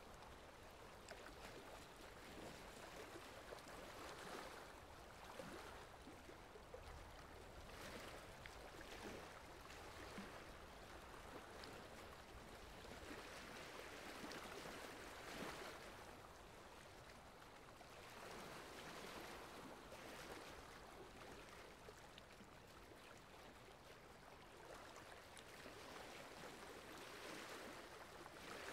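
Faint rubbing and scratching of a felt-tip marker colouring on paper, coming in uneven strokes that swell and fade every second or two.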